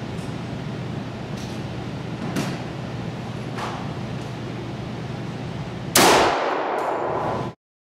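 A single pistol shot about six seconds in, with a long ringing tail, over a steady low hum. A few faint sharp clicks come before it, and the sound cuts off suddenly about a second and a half after the shot.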